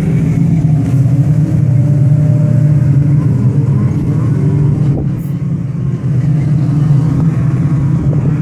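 A pack of jet skis running at speed together, their engines blending into one steady, loud drone.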